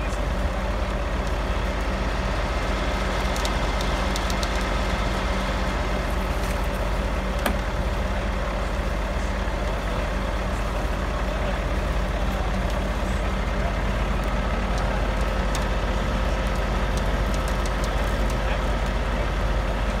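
Heavy truck's diesel engine running steadily, with a few faint clicks.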